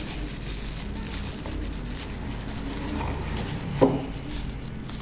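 Faint handling noise as a wristwatch is taken out of its box, with one sharp knock about four seconds in, over a steady low hum.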